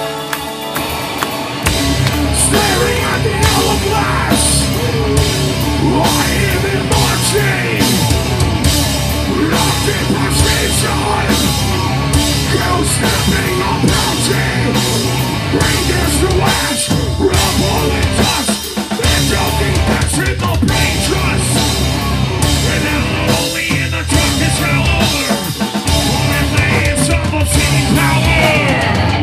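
Live heavy rock band playing: electric guitar alone at first, then the full band with drum kit and bass coming in loud about two seconds in, with a singer on top.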